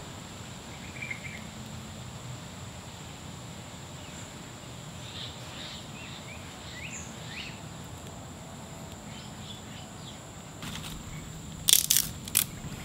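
Forest ambience: a steady high insect drone, with a few short rising bird chirps around the middle. Near the end come three or four sharp claps in quick succession, hands clapped together to brush off dirt.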